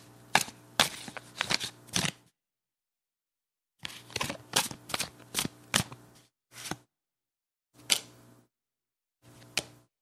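Playing cards being handled: two quick runs of sharp card snaps and flicks, each about two seconds long, then three single snaps spaced out toward the end.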